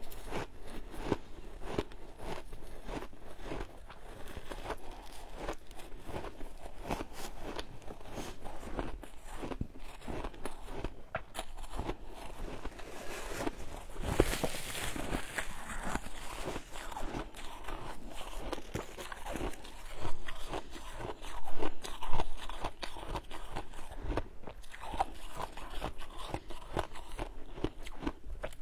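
Close-up crunching and chewing of frozen shaved ice, bitten from packed handfuls: a dense run of short, irregular crunches, loudest about two-thirds of the way through.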